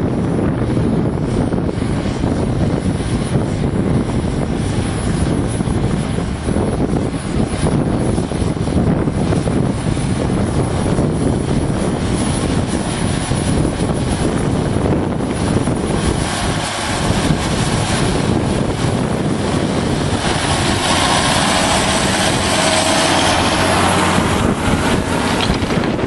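John Deere 6630 tractor's diesel engine running steadily under load as it pulls a plough through the soil. Over the last few seconds a louder rushing noise builds over the engine.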